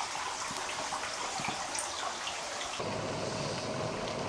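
Steady hiss of running water trickling. About three seconds in the background changes abruptly, with a low rumble and a faint steady tone coming in.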